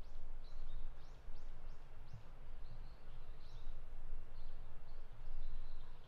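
Small wild birds giving short, high chirps, each a quick falling note, several in quick succession in the first two seconds and then more scattered. Underneath is a low rumble with soft footsteps on the path.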